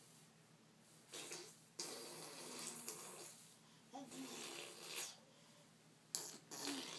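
A young child making car noises with the mouth: about four breathy, buzzing vocal bursts of a second or so each, with short pauses between.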